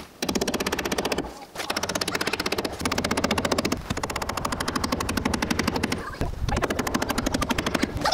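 Hammer knocking on wooden trim, sped up so the blows run together into a rapid rattle of many knocks a second, broken by a few short pauses.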